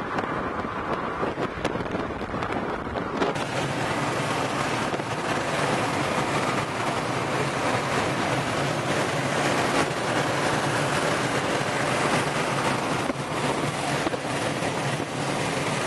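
Wind rushing over the microphone. About three seconds in it switches to the steady rush of a car on the move, heard from inside the cabin: road and wind noise over a low, even engine hum.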